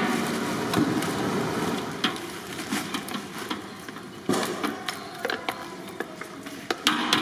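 Irregular clicks and knocks of kitchen work over a steady background hiss.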